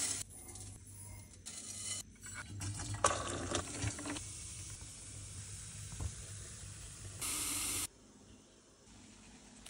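Hot water poured from a kettle into a stainless steel sink, with light knocks of dishes, then a brief louder hiss near the end.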